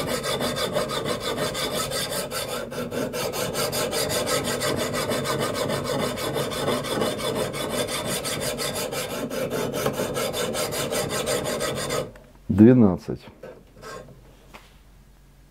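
Steel knife blade being sharpened on an abrasive: a steady rasping scrape that stops about twelve seconds in. The bevel is being ground to 12 degrees.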